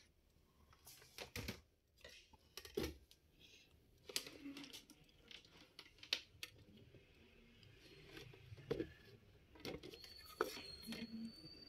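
Faint clicks, taps and light knocks of laptop parts and tools being handled on a workbench, scattered and irregular. A faint steady high whine begins about ten seconds in.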